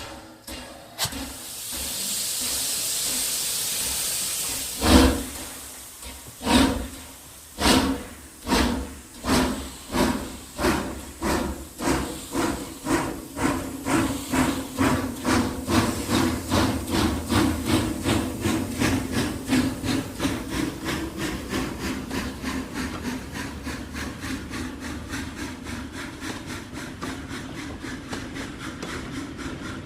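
Steam locomotive pulling away: a long hiss of released steam, then a heavy exhaust chuff about five seconds in, followed by chuffs that speed up steadily to about three a second and then grow softer.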